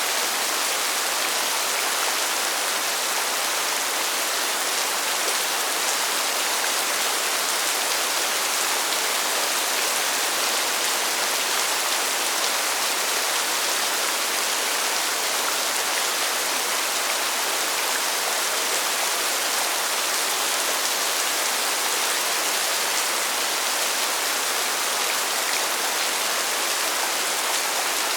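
Steady rainfall, an even hiss with most of its weight in the upper range and little low rumble, with no single drops or other events standing out.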